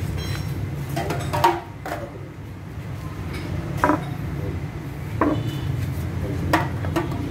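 A few sharp clinks and knocks of a bottle and parts being handled in a pickup's engine bay, the loudest about one and a half, four and six and a half seconds in, over a steady low rumble.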